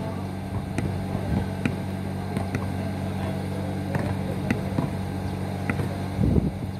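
Outdoor pickup basketball on an asphalt court: scattered short knocks and squeaks of the ball and players' shoes, about one a second, over a steady low hum.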